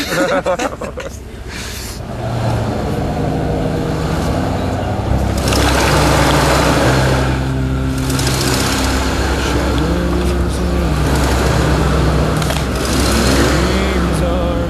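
Lifted pickup truck's engine running under load as it crawls through snow over a log, its pitch rising and falling a few times as it revs.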